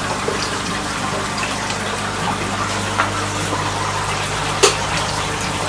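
Water pouring steadily from a return pipe into a koi fry tank, with a constant splashing rush over a steady low hum. A single sharp click sounds about three-quarters of the way in.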